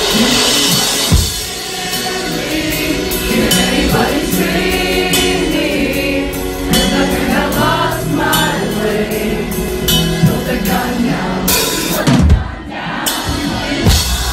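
Live rock band playing, with a drum kit and cymbal crashes under singing.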